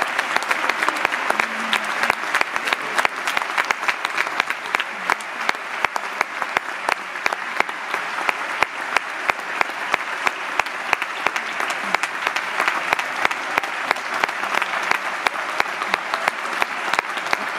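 Large audience applauding steadily without a break: a dense wash of clapping with sharp individual claps from hands close by.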